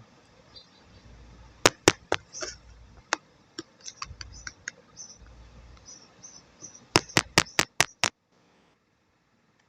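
Sharp clicks: two loud ones about a second and a half in, fainter ones over the next few seconds, then a quick run of six about seven seconds in, after which the sound cuts out. Faint high chirps in the background.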